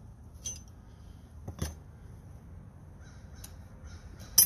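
Hand tools handled on a wooden board: a dull knock about a second and a half in, a few faint clicks, and a sharp metal clink near the end as the steel wrench of an auger bit kit meets the iron bits.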